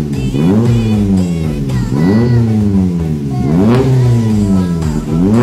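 Toyota Avanza engine revved through an aftermarket exhaust with a 4-2-1 header, resonator and DK-03v4 muffler. It is blipped about four times, each rev rising sharply and falling back slowly, roughly every second and a half.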